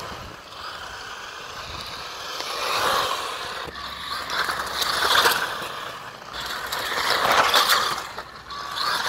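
HBX Transit RC crawler's 390 electric motor and two-speed gearbox driving in high range, whining in three surges as the throttle is worked over obstacles, with a gritty crackle in the louder stretches.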